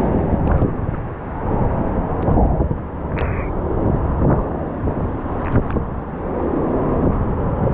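Hurricane eyewall wind blowing hard in gusts and buffeting the microphone, with rain. A few sharp clicks sound through it.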